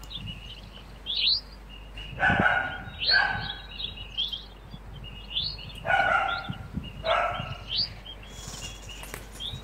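Eurasian jay fledgling calling loudly, the begging calls it uses to signal its parents. The calls come in two pairs, each call about half a second long, with short rising chirps in between.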